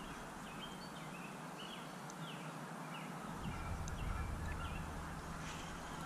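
A bird calling over and over with short, downward-sliding chirps over a steady background hiss. A low rumble comes in about halfway through.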